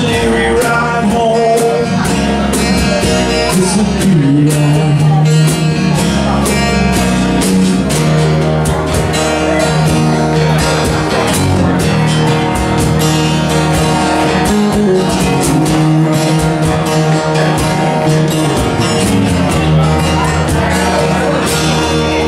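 Live acoustic band playing: strummed acoustic guitars with a cajon keeping a steady beat.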